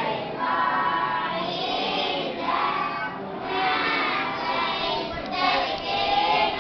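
Singing with long held notes.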